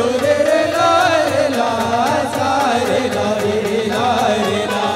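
Gondi rela pata folk song: a solo voice sings a winding, gliding melody over a steady percussion beat.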